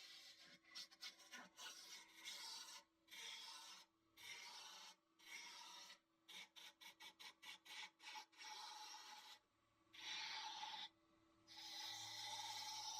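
Faint, broken scraping and rubbing of a turning tool cutting a wooden handle blank on a wood lathe, in short irregular strokes.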